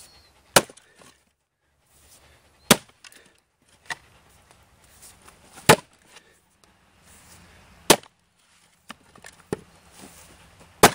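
An axe splitting Douglas fir rounds: five sharp chops, two to three seconds apart, with fainter knocks in between.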